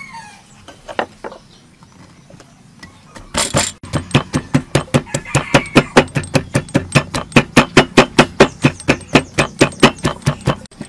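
Wooden pestle pounding garlic cloves and shallots in a wooden mortar: after a few light knocks, a steady run of thuds at about four or five a second starts about three seconds in.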